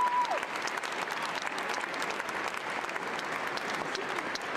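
Audience applauding steadily, a dense patter of many hands clapping. A single held whistle sounds over it at the start and drops away within the first half-second.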